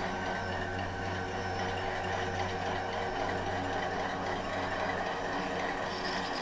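Diesel engine of an ST-series diesel locomotive running steadily with a low hum as the locomotive moves slowly along the track.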